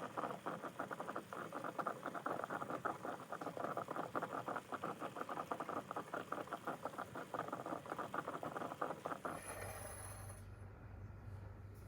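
Coffee percolator bubbling: a rapid, continuous stream of small gurgling pops as the water perks up through the stem. About nine seconds in the popping stops and a quieter steady low hum remains.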